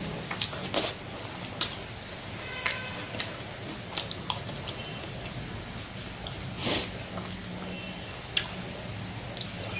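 Close-up eating sounds of a person eating by hand: scattered wet smacks and clicks of chewing and lips, with one sharp sniff about two-thirds of the way through.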